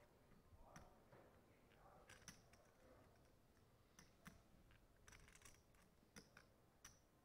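Faint, irregular clicking of clay poker chips being handled at the table, some clicks coming singly and some in quick little clusters.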